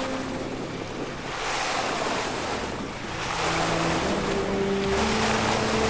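Bow wave of a 36-foot sailing sloop rushing and splashing along the hull as it drives through choppy water, with wind buffeting the microphone. The rush swells about a second and a half in, eases briefly near the middle and grows louder again toward the end.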